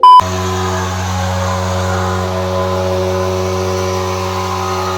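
A loud, short beep, then a steady drone of several held pitches that does not rise or fall.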